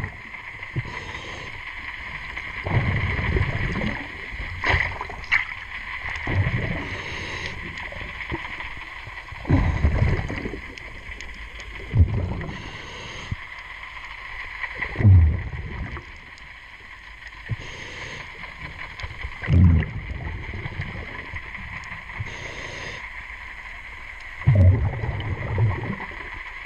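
A diver breathing through a regulator underwater, heard in turns: a hiss on each inhale and a rumbling burst of bubbles on each exhale, about every few seconds, over a steady faint hum.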